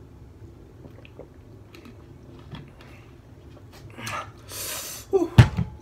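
Quiet drinking from a plastic drink bottle, then a breathy exhale after the drink and a sharp thud near the end as the capped bottle is set down.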